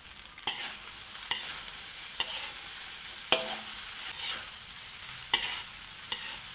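Metal ladle scraping and knocking against a wok about once a second while fried rice is stir-fried, over a steady sizzle of the rice frying in oil.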